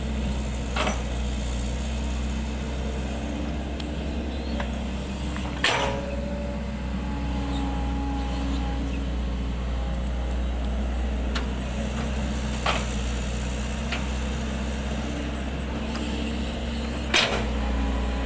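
Kobelco SK135SR excavator's diesel engine running steadily as it digs and levels loose soil, with a few sharp metal clanks from the bucket and arm, the loudest near the end.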